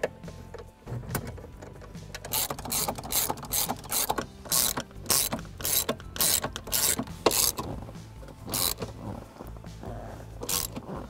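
Socket ratchet with a 13 mm socket clicking in quick repeated runs as it tightens the steering column's mounting nuts.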